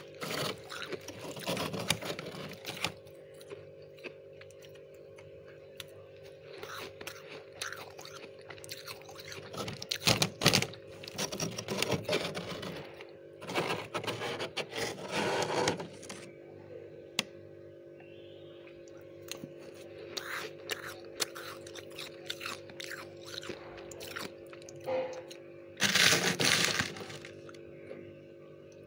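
Dry, powdery freezer frost being scraped and broken off by hand, in irregular bursts of crisp crunching. The loudest bursts come around ten seconds in and again near the end, over a steady low hum.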